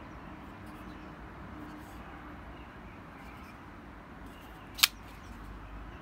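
Kubey Ruckus folding knife flipped open on its caged ceramic ball-bearing pivot, the blade snapping into its liner lock with a single sharp click about five seconds in, over faint steady background noise.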